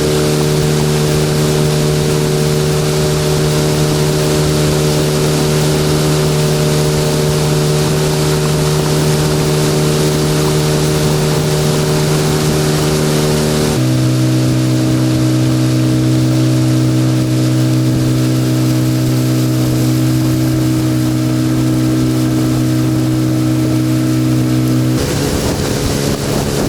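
Boat's outboard motor running steadily at cruising speed, loud and close. Its pitch drops sharply about halfway through and shifts again near the end.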